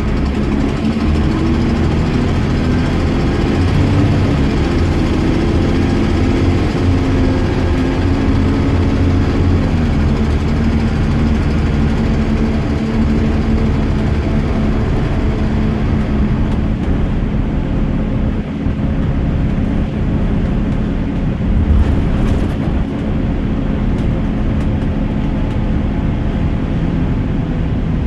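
Diesel bus engine running as the bus is driven; its note rises and falls over the first dozen seconds, then holds steady.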